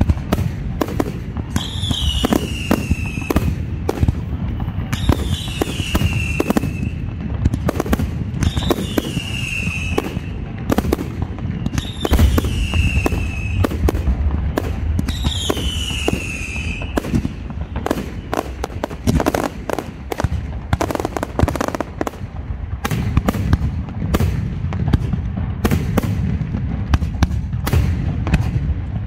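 Aerial fireworks display: a rapid barrage of shell bursts going off, bangs and crackle over a continuous low rumble. Over the first half a falling whistle repeats about every three and a half seconds, six times in all.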